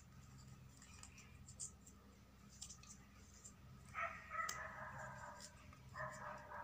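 Faint rustling and clicking of paper being folded and pinched by hand. About four seconds in, and again near the end, a dog makes high, drawn-out calls over it, louder than the paper.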